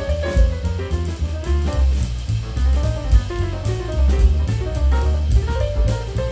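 Background jazz music with drum kit, bass and melodic lead instruments keeping a steady beat.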